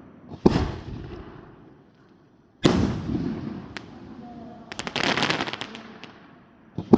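Fireworks shells bursting: a loud boom about half a second in and another a little over two seconds later, each trailing off in a rolling echo, then a quick run of sharp crackling pops about five seconds in.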